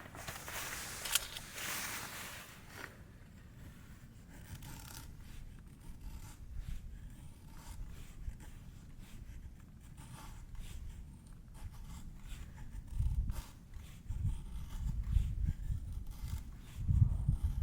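Close handling sounds: a scraping rustle in the first three seconds, then scattered light clicks and taps, with a few low bumps near the end.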